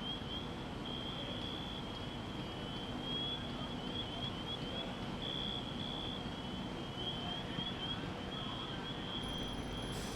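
Steady low engine rumble with a continuous run of quick, high, rising chirps over it.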